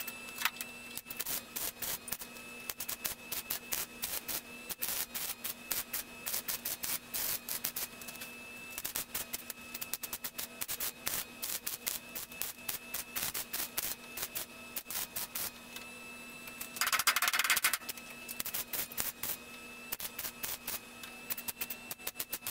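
Wire-feed welder tack-welding a steel patch over a rust hole in a 1978 Datsun 280Z's front body panel: a long run of short arc zaps, with one longer, louder weld about seventeen seconds in. A faint steady hum lies underneath.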